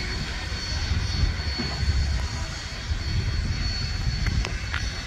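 Steam locomotive working slowly along the track: a steady low rumble with a faint, steady high-pitched tone above it, and a couple of light clicks near the end.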